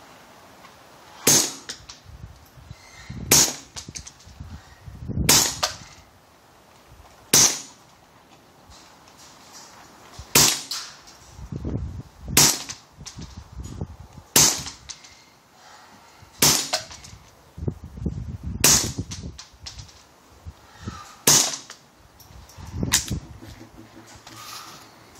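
Suppressed Ruger Mk III 22/45 .22 LR pistol with a Spectre suppressor firing about eleven single shots, spaced roughly two seconds apart, each a sharp crack.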